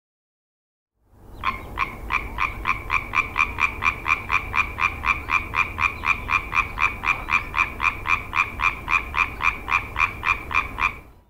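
European tree frog (Hyla arborea) calling: a long, even run of short, rapid croaks, about four a second, starting about a second in.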